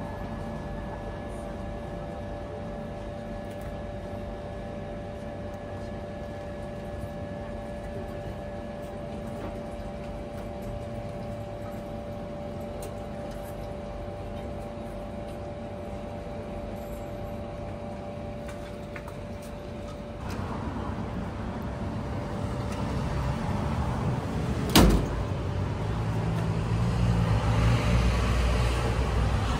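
Nissin Cup Noodle hot-water vending machine humming steadily with a few fixed tones while it dispenses hot water into the cup; the hum stops about two-thirds of the way in. Near the end comes a single sharp knock, the loudest sound, as the cup is taken out of the dispensing compartment, followed by a low rumble.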